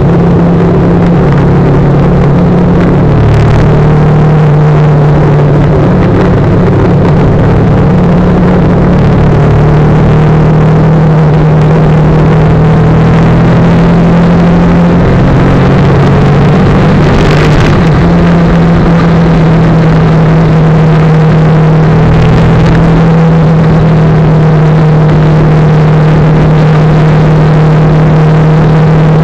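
Motorcycle engine running steadily at road speed under a constant rush of wind and road noise, heard from the bike itself. The engine note shifts in pitch a little past halfway, with a brief whoosh at the same moment.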